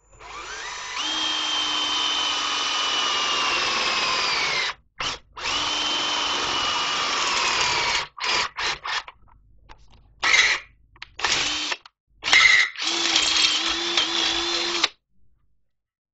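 Ryobi 18 V cordless drill boring into steel held in a bench vise. The motor whine slowly drops in pitch over a long run of about four seconds, stops, runs again, then comes in several short trigger bursts and a final run of about two seconds.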